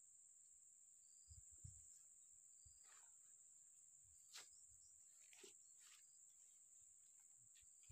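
Near silence, apart from a faint steady high-pitched insect drone and a few faint scattered clicks and low knocks.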